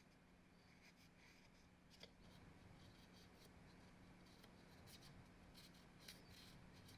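Near silence with faint scratching and scattered light clicks, over a low steady hum.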